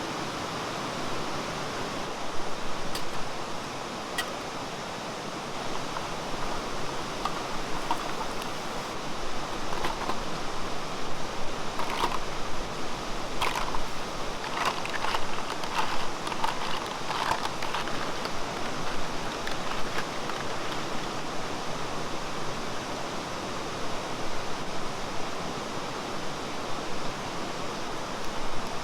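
Valley stream water flowing and babbling steadily, with a cluster of short, sharper sounds in the middle.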